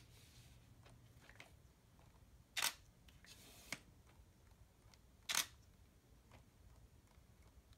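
Digital camera shutter firing twice, two sharp clicks about three seconds apart, with a short soft hiss and a faint click between them.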